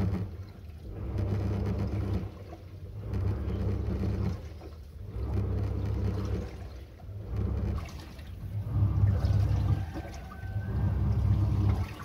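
Samsung WA80H4000 top-loading washing machine agitating its load in the rinse cycle. The wobble pulsator's motor hums in repeated bursts about every two seconds, with water sloshing and splashing through the clothes between quieter dips.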